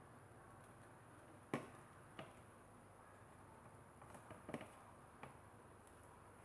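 Several sharp, separate clicks and taps from small parts being handled, the loudest about one and a half seconds in and a quick cluster around four seconds in, over a faint steady hiss.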